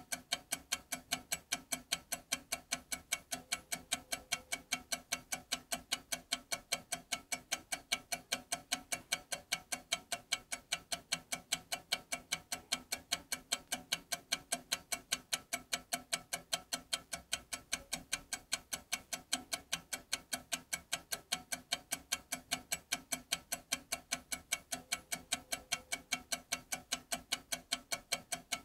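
A steady, even pulse of ticks, about three a second, each with a low tone under it, running unchanged.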